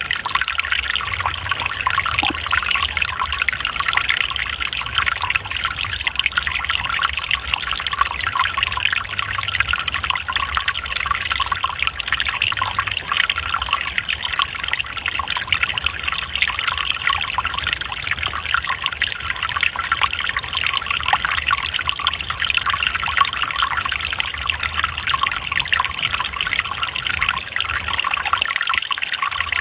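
Water trickling and flowing steadily, an even splashing hiss with no breaks.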